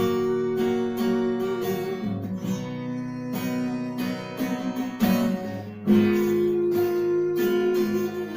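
Acoustic guitar strummed in a steady rhythm, playing chords with no voice.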